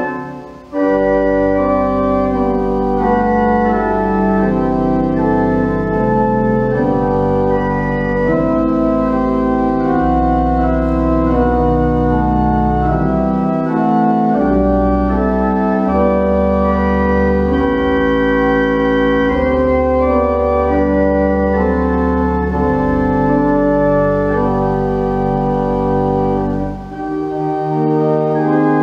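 Pipe organ playing slow music of long held chords over deep sustained pedal bass notes, with brief breaks between phrases about a second in and near the end.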